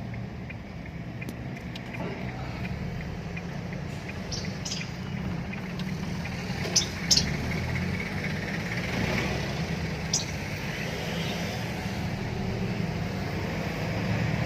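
Isuzu D-Max pickup with its 3.0 L 4JJ3-TCX diesel driving slowly, giving a steady low engine and road rumble. A faint regular ticking runs through the first couple of seconds, and a few short sharp clicks come around the middle.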